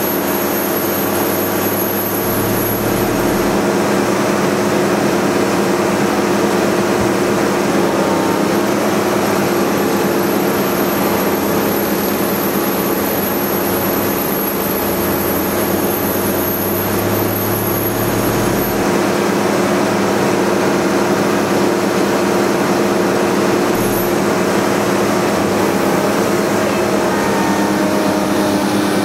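Shear-wave seismic vibrator truck running steadily with a droning engine tone. A deeper rumble joins in briefly a couple of seconds in and again for a few seconds around the middle.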